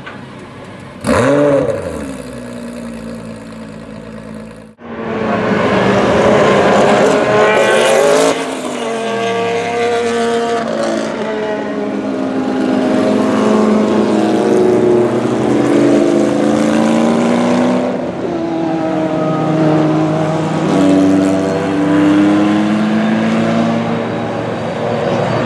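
Group C sports-prototype race cars at full throttle. One car passes with a falling pitch about a second in. After a sudden cut, a second car passes loudly, then several cars run together with their engine notes rising and overlapping as they accelerate.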